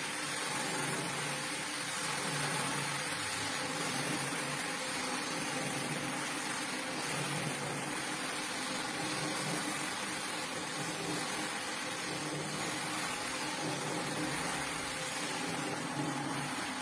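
A rug-cleaning machine running steadily: an even motor hum under a constant hiss, with no breaks or strokes.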